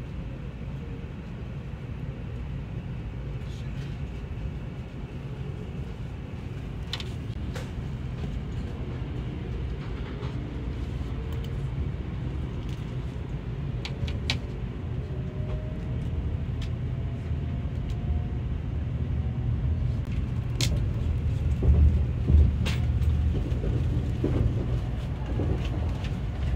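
Shinkansen bullet train running, heard inside the passenger car: a steady low rumble, with a faint rising whine in the middle and a few short clicks, growing a little louder near the end.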